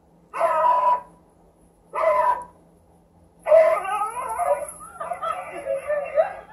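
A dog barking and howling, heard through a TV's speaker: two short barks, then a longer run of calls that rise and fall in pitch from about halfway through.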